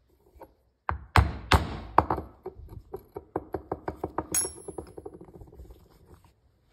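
A run of sharp knocks or taps: a few heavy ones, then quicker, lighter taps about five a second that fade away, with a brief high metallic ring midway.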